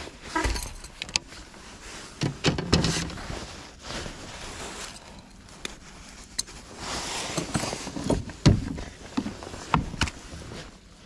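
Gear knocking and rattling in a fishing kayak: scattered clicks and knocks, a swell of rushing noise about seven seconds in, and one sharp, loud knock soon after.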